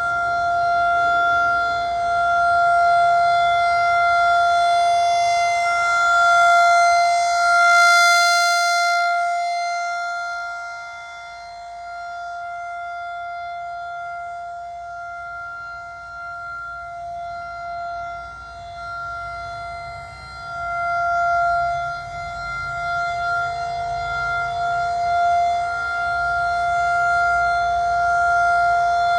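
Federal Signal 2001-SRN rotating outdoor warning siren sounding on test, holding one steady tone at a constant pitch. Its loudness swells and fades over several seconds as the rotating horn turns toward and away, weakest in the middle of the stretch.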